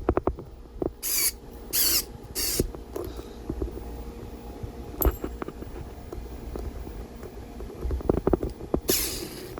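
Small ticks and scrapes of a screwdriver tightening a circuit breaker's terminal screw down on a ferrule-crimped wire, with a few short rustles of handling. A quick run of ticks at the start, one click midway and another cluster of ticks near the end.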